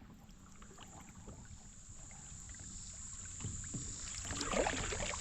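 Kayak paddling: faint paddle splashes and small knocks against the hull, growing louder over the last couple of seconds.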